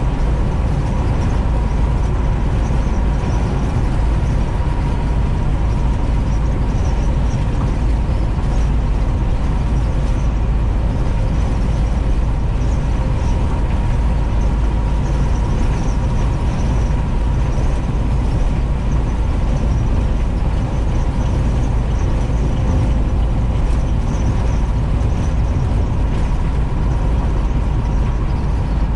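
Steady engine drone and road noise inside a short bus's cabin as it cruises on the highway, with a faint steady whine over it.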